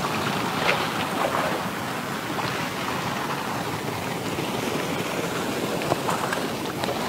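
Shallow muddy pond water sloshing and splashing as a long-handled dip net is swept through it after a large fish, with a few short splashes over a steady rushing noise.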